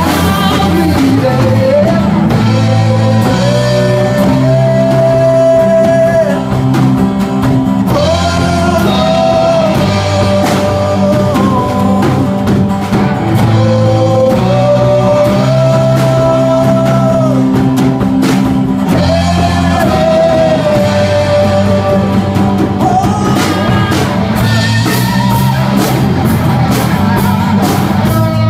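Live rock band playing: a male lead singer singing held, sliding phrases over strummed acoustic guitar, electric guitar, bass guitar and drum kit.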